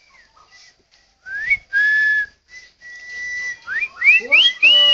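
Whistling: a run of whistled notes starting about a second in, with a rising note, a held note and a steady tone, then quick upward swoops and a high held note near the end.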